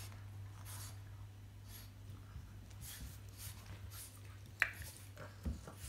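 A French bulldog and a St Bernard play-wrestling: soft rustles and mouthing noises, with a sharp click late on and a low thump just after it, over a steady low hum.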